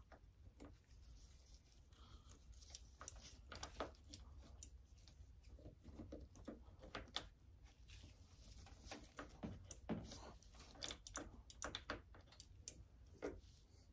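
Faint, irregular clicks and rustles of gloved hands handling the parts of a motorcycle's handlebar lever assembly, over a low steady hum.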